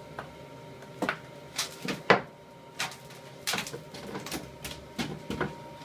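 Irregular clacks and knocks, a dozen or so, from freshly cast aluminium parts being dug out of the moulding-sand box and handled.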